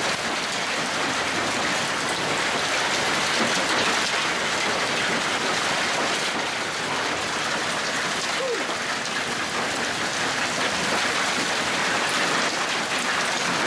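Heavy monsoon downpour mixed with hail, a steady dense hiss of rain and hailstones pelting down.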